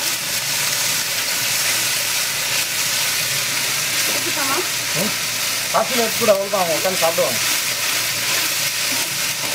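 Chicken masala frying in oil in a large black wok (kadai), a steady sizzle while a steel ladle stirs and turns it. A voice talks briefly in the background about halfway through.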